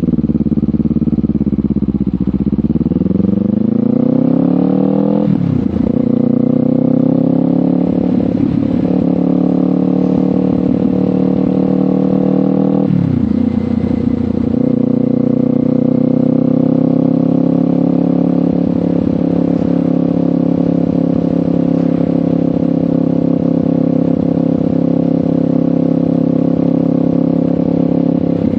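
Kawasaki Ninja 500's parallel-twin engine through a LeoVince GP Corsa Evo exhaust, accelerating through the gears. The pitch climbs, then drops sharply at a shift about 5 seconds in and again about 13 seconds in. After that the engine holds a steady cruise.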